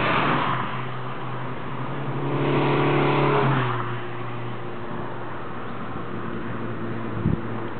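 Volkswagen Scirocco driving past at speed, its engine and tyre noise loudest as it goes by. A second swell of engine sound follows about two to three seconds in, with the engine note dropping in pitch as it fades away. A short knock comes near the end.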